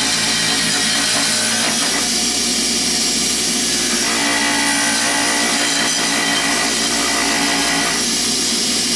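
Bench grinder with a Scotch-Brite wheel running steadily while a stainless steel shaft is held against the spinning wheel, deburring and polishing it up inside its machined groove to take off the machine marks.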